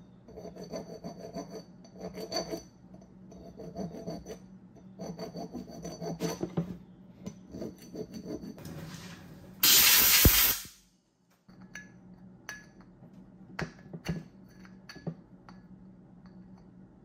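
Needle file rasping on the steel spline corners of an overdrive cone clutch hub in short groups of back-and-forth strokes, dressing dented corners that stopped the sun gear from fitting. About ten seconds in comes a loud burst of rushing noise lasting about a second, then light metal clicks and clinks as a splined gear is tried in the hub.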